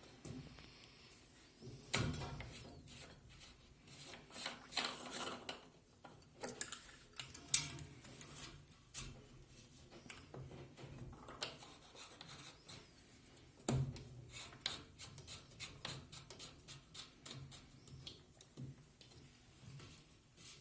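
Plumbing fittings being handled and pushed onto pipe: scattered small clicks, rubbing and knocks, with sharper knocks about two seconds in, near seven and a half seconds and near fourteen seconds.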